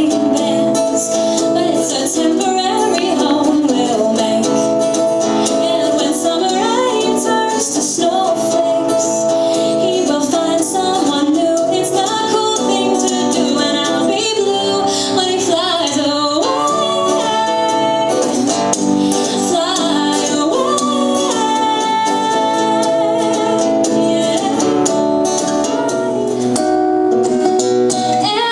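A woman singing a song while playing an acoustic guitar, amplified through PA speakers in the room.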